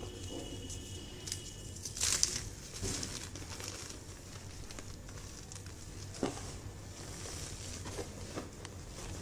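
Hands scooping, sifting and pressing loose crumbled gym chalk powder: soft powdery crumbling and rustling, with a louder crunchy rustle about two seconds in.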